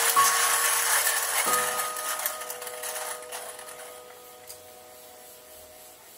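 Hand coffee grinder being cranked, its burrs grinding through coffee beans with a rasping noise that fades away over about four seconds. Soft background music with a few held notes plays underneath.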